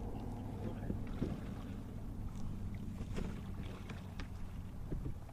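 Steady low rumble of a kayak on the water, with a few light clicks and knocks scattered through it.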